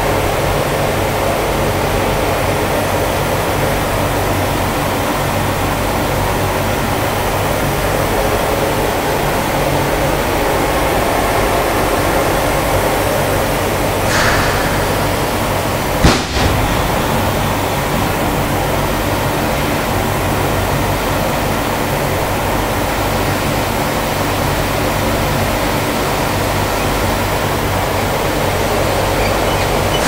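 Steady rushing air and machinery noise of an automatic electrostatic enamel powder coating line, with a low hum underneath. A single sharp click about 16 seconds in.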